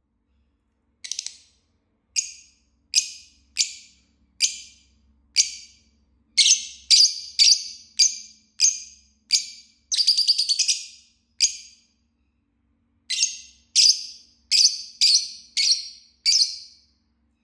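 Fischer's lovebird chirping: a string of short, sharp, high-pitched chirps, about one or two a second, with a quick rattling run of chirps about ten seconds in, a short pause, then a last cluster of chirps.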